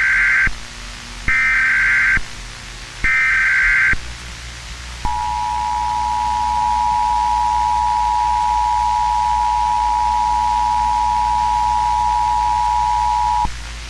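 Emergency Alert System tones: three short bursts of SAME header data, each under a second and about a second apart, then the two-tone attention signal (853 and 960 Hz sounded together) held steady for about eight seconds before cutting off sharply. This sequence announces that an emergency alert message follows.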